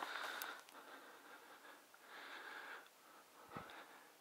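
Faint, slow breathing close to the microphone, one breath roughly every two seconds, with a single small click about three and a half seconds in.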